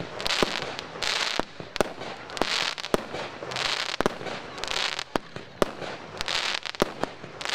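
Aerial fireworks firing in quick succession: a short rushing hiss about once a second, mixed with many sharp bangs as the shots burst.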